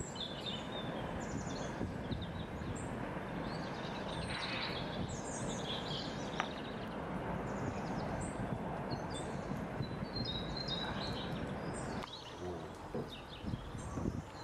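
Outdoor ambience: a steady background rush with small birds chirping now and then. The rush drops noticeably about twelve seconds in.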